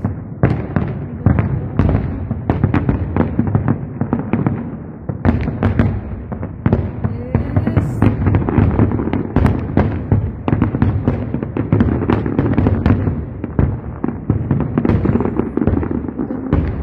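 Fireworks display: a dense, continuous barrage of aerial shell bursts and crackling, many sharp bangs following each other in quick succession with a heavy low boom underneath.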